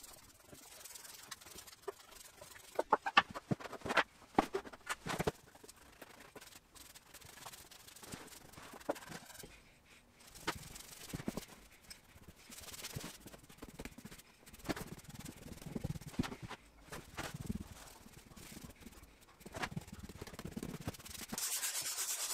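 Quiet brush strokes and scraping as water-based varnish is brushed onto a wooden desk top, with a few light knocks. Near the end comes a louder, steady rasp of hand sanding, the top being smoothed with 120-grit sandpaper between coats.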